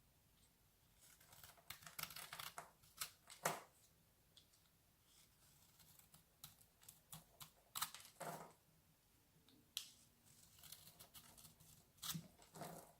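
Close-miked ASMR handling sounds: an irregular run of soft clicks, scratches and crackles, with a few sharper snaps standing out, about 3.5, 8 and 12.5 seconds in.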